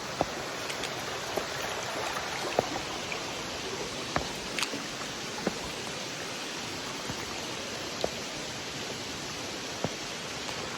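Stream water running over rocks, a steady rush, with a few short, light clicks scattered through it.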